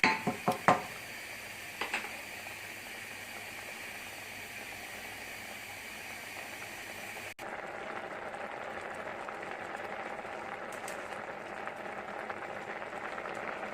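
Creamy mushroom sauce simmering in a pan, a steady bubbling hiss, with a few sharp clicks in the first two seconds. About seven seconds in the sound cuts to a different steady sizzle of oil heating in a frying pan.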